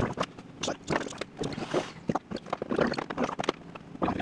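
Silver plastic body panel of a Yamaha C3 scooter being handled and pressed onto the frame: irregular clicks, knocks and scrapes of plastic against plastic and metal as its tabs are worked into place.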